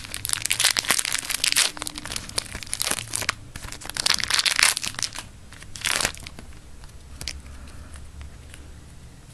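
A foil Yu-Gi-Oh booster pack wrapper crinkling and crackling as it is torn and peeled open by hand, in dense spells over the first six seconds or so. After that it dies down to a few faint rustles.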